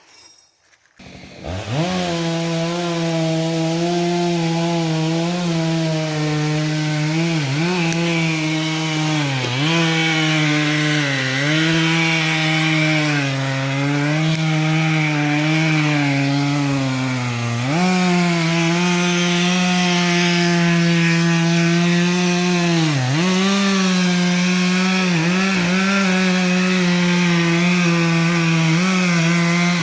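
Two-stroke chainsaw cutting wood at high speed. It comes in about a second in, and its pitch dips and recovers several times as the chain loads up in the cut.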